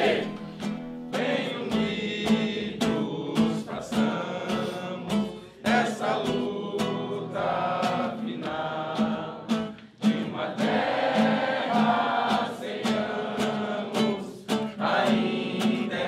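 A song sung by many voices together, with instrumental accompaniment keeping a steady beat.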